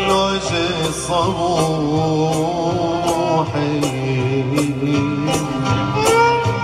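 Man singing a Middle Eastern melody live into a microphone, with bass notes and a steady percussion beat about every 0.7 seconds underneath.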